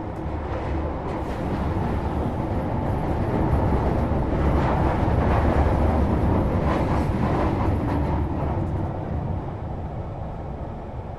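Interior of a London Underground Tube train travelling between stations: a dense rumble and rattle of the running train that grows louder to a peak midway, then eases off.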